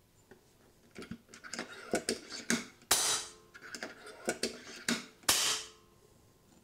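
FX Dreamline PCP air rifle being cocked with its side lever, a string of metallic clicks, then fired twice, two sharp bursts of released air about two and a half seconds apart. These are test shots that cycle the AMP regulator so it settles at its newly set pressure.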